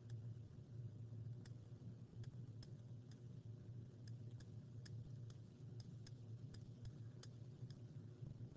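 Faint, irregular clicks of a computer mouse button, about two a second, as it is pressed and released to handwrite strokes on screen, over a low steady hum.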